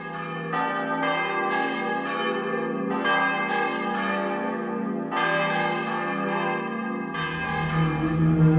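Church bells ringing, struck again and again at uneven intervals so that the ringing tones overlap. About seven seconds in, a low steady drone joins them.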